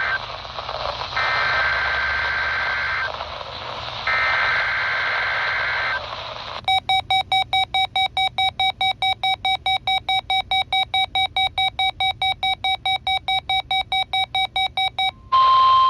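NOAA Weather Radio reception through static, with two warbling bursts of SAME digital header data at the start of a Required Weekly Test. Then a rapid pulsed beep, about three to four beeps a second for about eight seconds, which is the weather radio's own alert going off. Near the end the static returns and the steady 1050 Hz warning-alarm tone starts.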